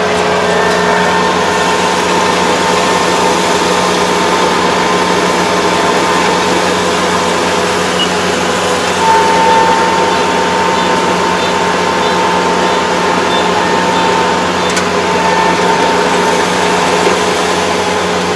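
Iseki ER470 combine harvester running steadily, heard from inside its cab: a constant engine and machinery drone with a steady hum.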